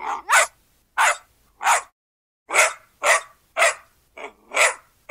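A dog barking: about nine short, sharp barks in quick, uneven succession.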